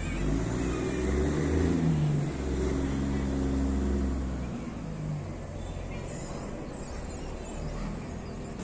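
A motor vehicle's engine running, loudest for the first four seconds or so and then fading away, leaving a low steady rumble.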